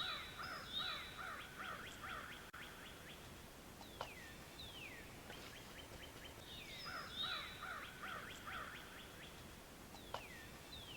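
Faint songbirds singing: two quick runs of repeated notes a few seconds apart, with single falling whistles in between.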